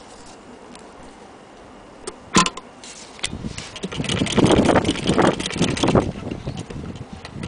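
A sharp click about two seconds in, then a hand-cranked Singer 15K80 sewing machine running for about four seconds as it stitches a piece of leather.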